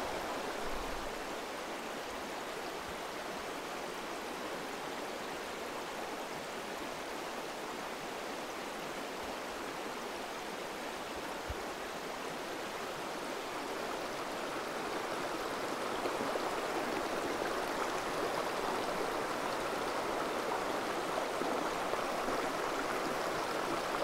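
Small mountain trout stream running over rocks: a steady, even rush of water that grows a little louder about two-thirds of the way through.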